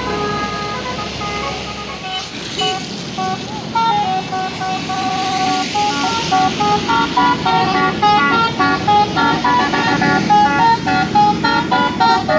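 A bus's basuri horn playing a quick melody of short, stepped notes, one after another, getting louder about four seconds in. A vehicle engine rumbles low underneath at the start.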